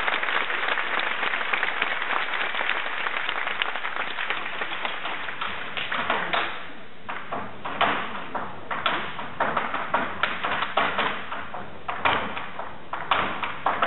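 Irish dance hard shoes beating on a stage with no music: a dense clatter for the first half, then separate sharp taps and stamps in quick rhythmic clusters.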